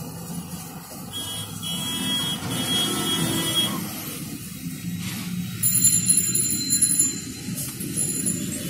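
Steady low rumble of street traffic, with a high pulsing ringing for a second or so just past the middle.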